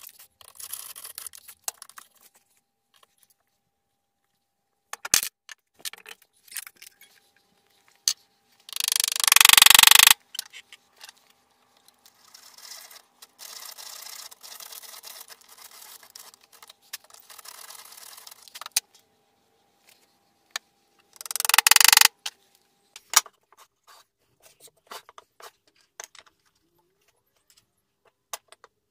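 Woodworking at a bench: scattered knocks and clicks of wood, pegs and tools being handled, with two much louder rushing bursts of noise, one lasting over a second about nine seconds in and a shorter one about twenty-two seconds in.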